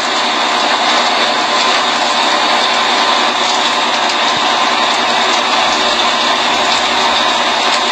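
Fire-fighting water cannons jetting water at full pressure: a loud, steady rush of spray. Underneath runs a steady machine hum from the pumps and engines.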